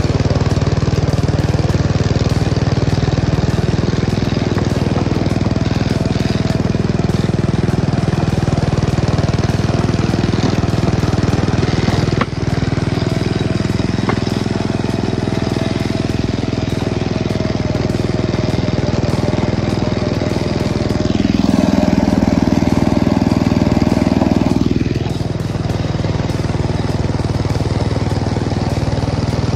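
Small engine of a 10¼-inch gauge miniature railway locomotive running steadily as it travels along the track, working harder for a few seconds about three-quarters of the way through. A single sharp knock about twelve seconds in.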